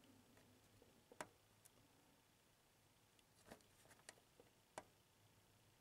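Near silence with a few faint sharp clicks, the loudest a little over a second in: multimeter probe tips touching resistor leads on a pinball machine's driver board while the resistor is measured.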